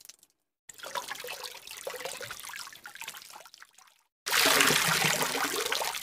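Two separate running-water sound effects. The first starts about a second in and fades away. After a short silent gap, a louder, fuller rush of water starts suddenly near the end.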